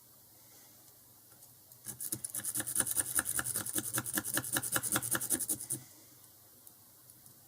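Lock pick being worked rapidly in the keyway of a Squire SS50C padlock, its pins clicking about nine times a second for about four seconds, starting about two seconds in.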